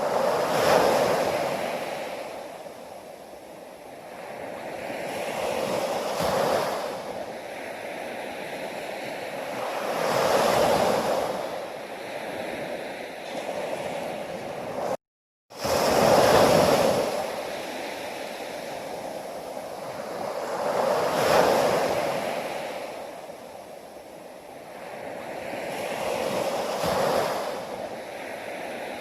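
Sea waves breaking and washing up, one swell every five seconds or so, each rising and then falling away. The sound cuts out to silence for a moment about halfway through.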